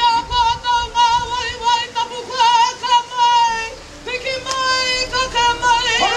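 A woman's karanga, the Māori ceremonial call: a single high voice held in long wavering notes with strong vibrato, breaking off briefly about four seconds in before another long call.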